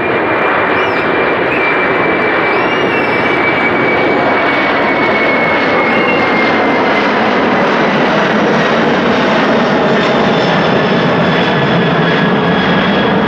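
Boeing 747-400 four-engine jet airliner climbing out at takeoff power, a loud, steady jet engine noise. A high whine in it slowly falls in pitch as the aircraft passes and moves away.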